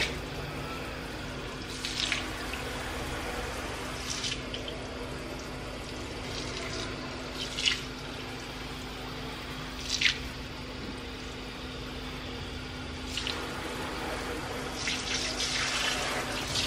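Kitchen faucet running steadily into a large stainless steel sink, with a few brief knocks or splashes every couple of seconds.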